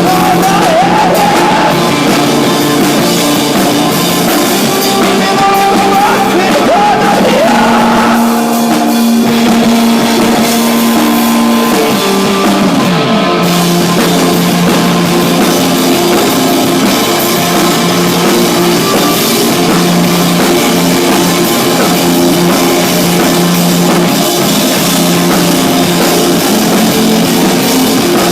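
Loud live rock band playing, with drums and singing.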